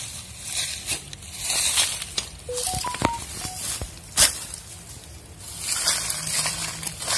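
Dry leaves and brush crunching and rustling in irregular swells, with a sharp knock about four seconds in.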